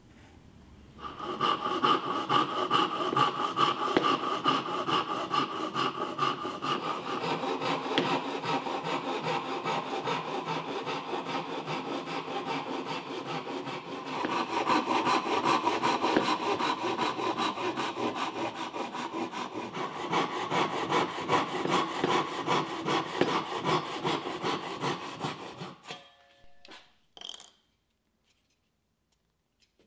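A hand saw cutting through a small block of wood in quick, steady back-and-forth strokes. The sawing stops near the end and is followed by a couple of light knocks.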